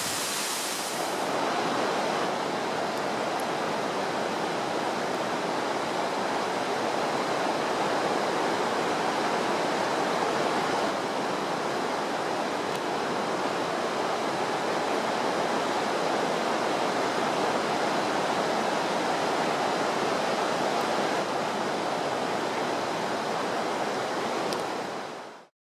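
Waterfall, a steady, dense rush of falling water. The sound changes character about a second in and cuts off just before the end.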